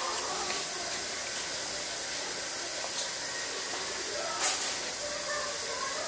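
Steady background hiss with faint, indistinct murmuring sounds, and one short, sharp noise about four and a half seconds in.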